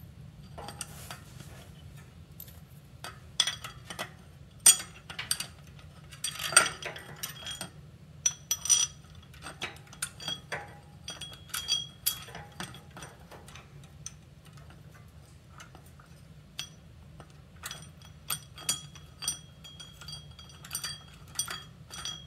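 Metal bolts clinking and tapping against a motorized-bicycle rear sprocket and its hub mount as they are pushed through the holes and threaded in by hand. The clicks come irregularly, some leaving a short high metallic ring.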